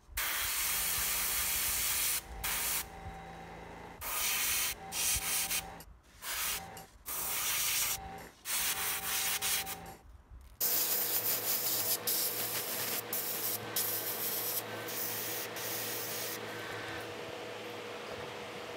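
Airbrush spraying paint through a hand-held paper stencil: a loud hiss of air and paint in repeated bursts that start and stop sharply, then a softer, steadier hiss in the second half.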